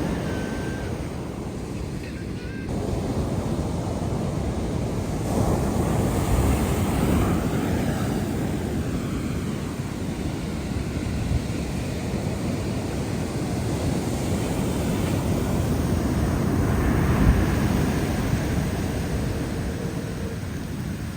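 Atlantic Ocean surf breaking and washing on the beach, swelling and easing every few seconds, with wind buffeting the microphone.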